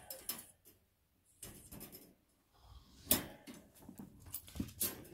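Wire dog crate door being unlatched and swung open: scattered metal rattles and clicks, the loudest a sharp clank about three seconds in, with a cluster of clicks near the end.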